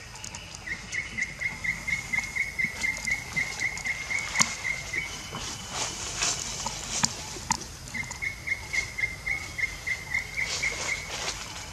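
A bird calling a fast run of short notes on one pitch, about five a second, lasting a few seconds and repeated once about three seconds later. Scattered sharp clicks and light rustling go on throughout.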